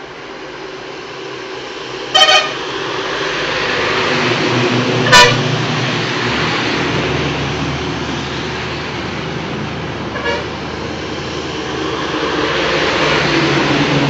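Heavy trucks driving through rainwater on a wet road: a steady hiss of tyres and spray over engine rumble, growing louder as they come close. Short vehicle-horn toots sound about two seconds in, a louder one about five seconds in, and a faint one near ten seconds.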